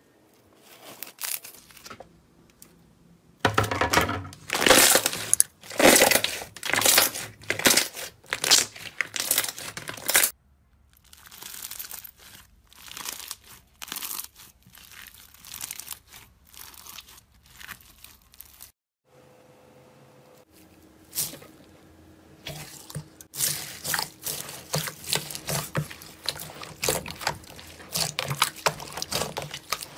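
Hands squeezing, pressing and kneading slime: sticky wet squishing with crackly popping clicks. It comes in several separate takes that stop and start, one of them a slime packed with small beads.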